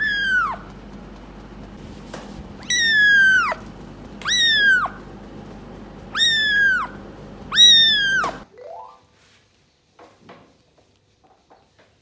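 Month-old kitten mewing five times, each call high-pitched and falling sharply in pitch at its end, with short gaps between them.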